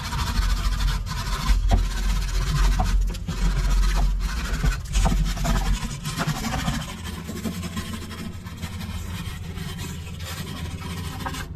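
Hand wire brush scrubbing the rusty, penetrant-soaked threads of exhaust flange bolts: harsh, irregular scraping strokes, with a low rumble under the first half that fades after about six seconds.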